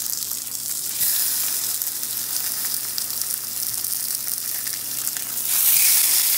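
Pork chops sizzling as they sear in hot olive oil in a cast iron frying pan. The sizzle gets louder about a second in and again near the end as more chops are laid into the oil.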